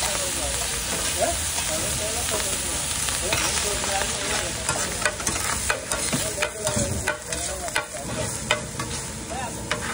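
Metal spatula scraping and clacking on a large flat griddle while egg fried rice is stir-fried, over a steady sizzle. The sharp scrapes and clacks come thicker in the second half.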